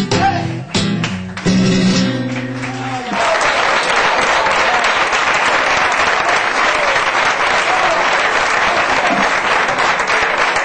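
Flamenco guitar strumming its last chords, which stop about three seconds in, followed by an audience applauding steadily.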